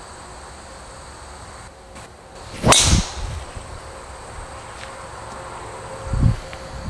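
A golf club striking a ball off the tee: one sharp crack about two and a half seconds in, after a quiet moment during the swing. A dull low thump follows near the end.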